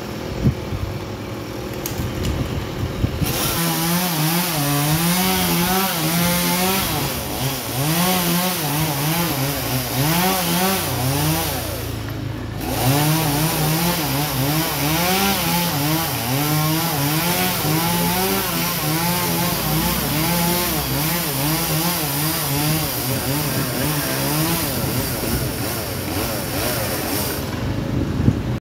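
Chainsaw running and cutting into a tree trunk, its engine pitch rising and falling continually under load over the hiss of the chain. It starts about three seconds in and drops out briefly near the middle.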